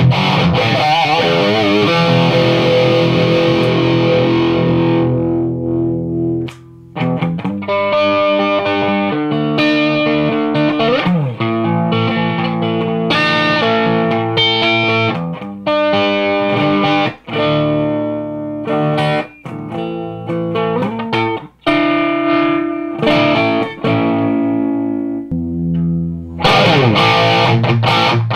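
Heavily distorted electric guitar played through a high-gain tube amp: a Crate Vintage 60 rebuilt as a Splawn/Soldano SLO-style amp, heard through a mic'd 2x12 cabinet with Vintage 30 speakers. It opens with sustained power chords, then moves to single-note riffs and lead lines with a few bends or slides, and heavy chords return near the end.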